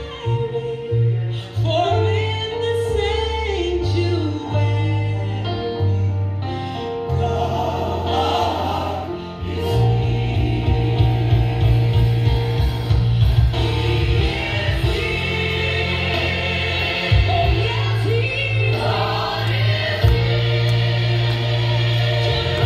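Recorded gospel song played back for a dance: a choir singing over a steady bass line.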